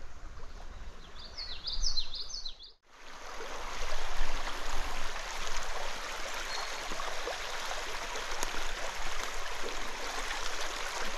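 A small bird chirps a quick run of high notes over faint water noise. About three seconds in the sound drops out for a moment, then the steady rush of running stream water takes over, louder.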